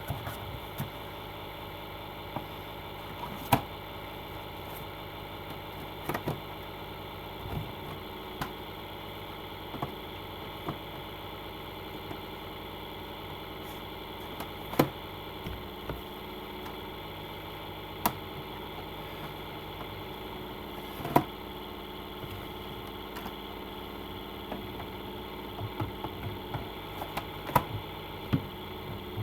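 Scattered sharp clicks and knocks of plastic DVD cases and discs being handled and packed back into a box set, over a steady mechanical hum.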